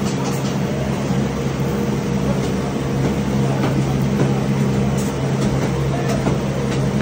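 A steady low mechanical drone: a constant hum over an even wash of noise, with scattered faint ticks.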